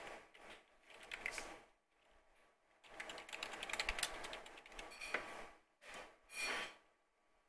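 Computer keyboard typing in quick runs of keystrokes with short pauses between them, the densest run about three seconds in.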